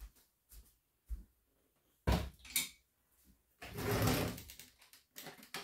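A stainless steel pot being set down on a glass-ceramic electric cooktop: two sharp metal knocks about two seconds in, then a longer clattering scrape of the pot settling on the glass.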